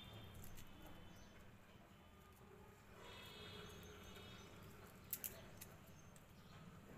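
Near silence: faint room tone with a low hum, a few faint high chirps in the middle, and two small sharp clicks about five seconds in.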